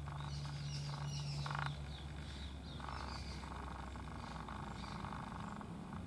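Outdoor birdsong: high chirps, and a few stretches of fast-pulsed, rasping calls. Under them runs a steady low hum that shifts up in pitch about two seconds in.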